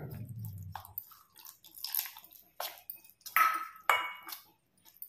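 A metal spoon scraping and clinking against a stainless steel bowl, stirring flour and water into a thick batter. The strokes come irregularly, a few of them ringing briefly.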